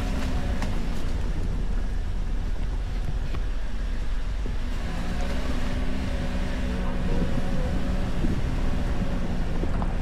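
Toyota Veloz's 1.5-litre four-cylinder engine running as the loaded car drives over a rough dirt trail, with a constant low rumble and a few knocks from the bumpy ground in the first second. A steadier engine hum comes through in the second half.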